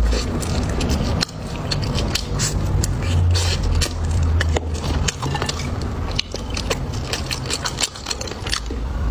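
Close-miked eating: many short, sharp crunches and crackles of food being bitten and chewed, over a low rumble.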